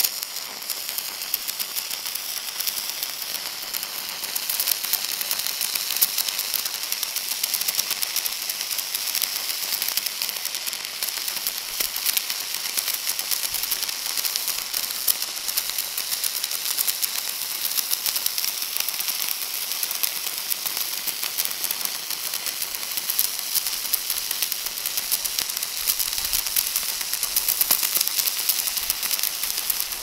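Stick (MMA) welding arc burning continuously: a steady, dense crackle and hiss from the electrode rod that never breaks off.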